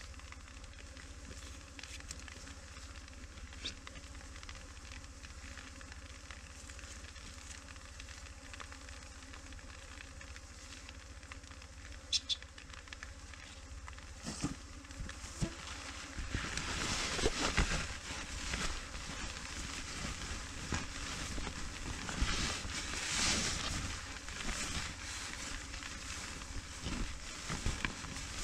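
Wind on the microphone, a low steady rumble, with a louder crackling rustle setting in about halfway through.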